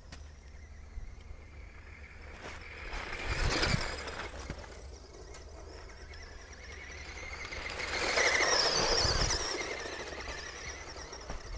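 Tamiya Sand Rover RC buggy's electric motor and drivetrain whining as it drives past twice on a dirt road, the first pass about three and a half seconds in and a louder, longer one about eight seconds in.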